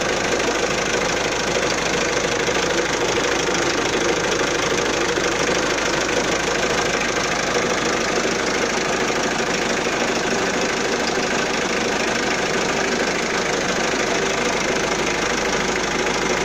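Hyundai Galloper 2.5 TDI's four-cylinder turbo-diesel engine running steadily, heard close up from the open engine bay.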